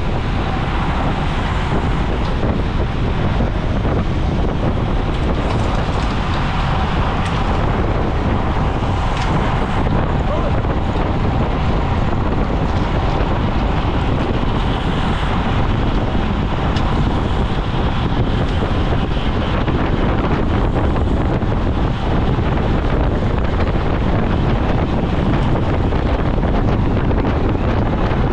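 Steady wind noise buffeting an action camera's microphone as it rides at racing speed in a pack of road cyclists.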